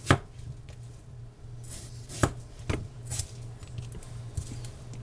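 Kitchen knife slicing through a watermelon, the blade knocking down sharply: one loud knock right at the start, two more about half a second apart a little past two seconds in, with softer scraping cuts in between.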